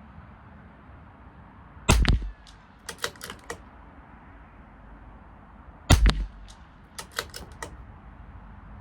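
CZ 457 LRP .22 LR bolt-action rifle fired twice, about four seconds apart, each shot followed by a quick run of clicks as the bolt is worked to eject the case and chamber the next round.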